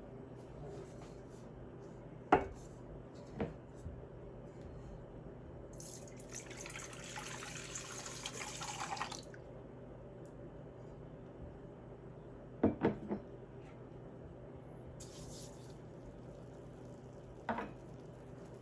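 Liquid being poured into a bowl for about three seconds, growing louder until it stops, with a few sharp clinks of kitchenware before and after, over a low steady hum.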